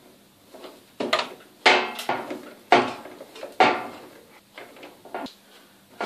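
Sharp plastic knocks and clicks as the water heater's plastic lower cover is handled and pushed into place, about five strong ones spread irregularly, the loudest in the middle, then a few lighter taps.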